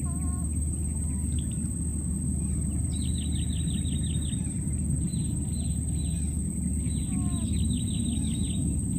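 Outdoor ambience: a steady low rumble, a steady high-pitched whine, and three bursts of rapid, quick-falling bird chirps in the middle and second half, with a few short faint squeaks at the start.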